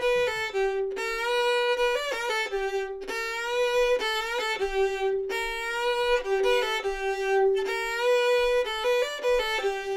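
Solo fiddle bowing a bluegrass-style variation on a simple melody, mostly long held notes with a few quick passing notes and short slides up into some notes.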